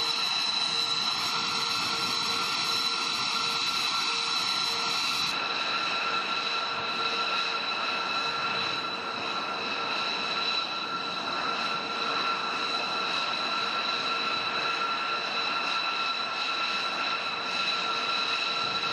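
Jet engine idling: a steady rushing noise with several high, unchanging whine tones. The sound changes abruptly about five seconds in, then runs on evenly.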